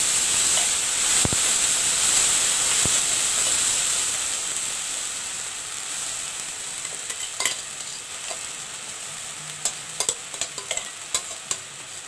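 Wet ginger-cumin paste frying in hot oil in a metal kadai: a loud sizzle that slowly dies down. Later a metal spoon stirs the paste, clinking sharply against the pan near the end.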